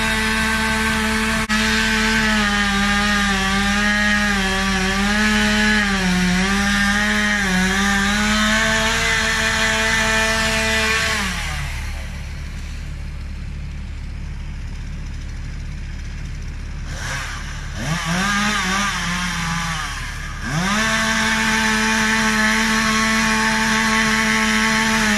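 Two-stroke chainsaw at full throttle cutting into the trunk of a standing tree, its pitch dipping and wavering as the chain bites. About eleven seconds in it drops back to idle and is revved briefly. About twenty seconds in it returns to full throttle in the cut and bogs down near the end.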